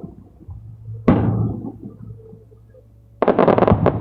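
Aerial firework shell bursting overhead with a sharp boom that fades out about a second in, then a dense burst of crackling near the end.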